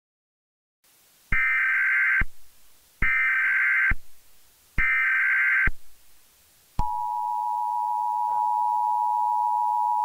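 Emergency Alert System tones: three short bursts of screeching digital data (the SAME header), each just under a second long with brief gaps, then about seven seconds in the steady two-tone EAS attention signal begins.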